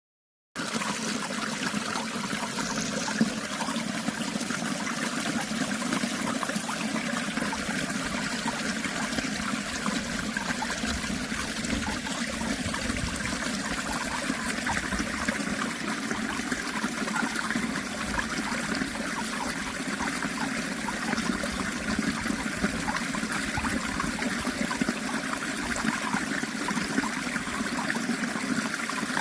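Water of a small stream flowing steadily, after a half-second cut to silence right at the start.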